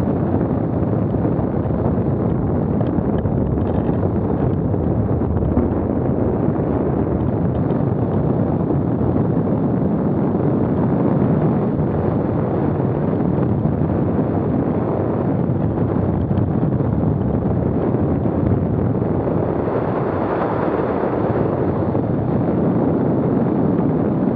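Strong wind buffeting the microphone: a steady, loud, low rumble with no let-up.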